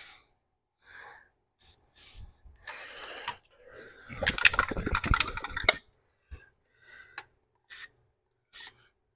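Hand work on a steel truck frame rail: metal clinks and clatter, loudest for about a second and a half midway. Several short hissing squirts come from an aerosol lubricant can at the spring hanger.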